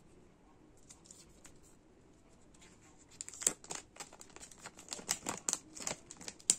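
Thin clear plastic protective film crinkling and crackling in an irregular run as it is handled and peeled off a new smartphone, starting about three seconds in, with only faint rustles before.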